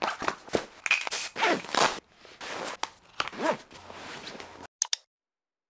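A nylon backpack being packed by hand: rustling fabric, scrapes, and clicks of pens and other items going into its pockets. It stops abruptly near the end.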